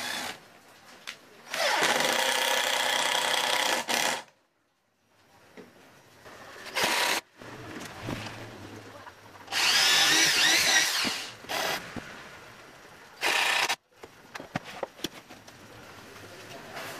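Blue electric drill, its chuck gripping a threaded shaft, running in four bursts: two of about two seconds and two brief ones, its whine wavering in pitch during the second long run.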